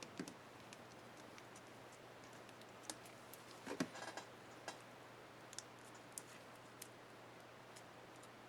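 Faint, scattered small plastic clicks and ticks from a laptop keycap and its retainer clip being handled and fitted on the keyboard, the loudest cluster about four seconds in, over a low steady hum.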